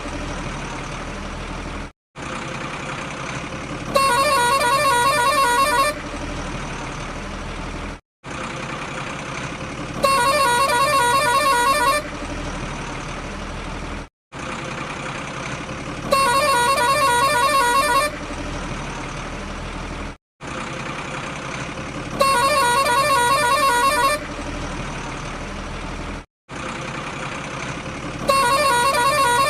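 A looped truck sound effect: a horn sounds for about two seconds, followed by about four seconds of engine running, with a brief cut between repeats. The pattern repeats about every six seconds, five times over.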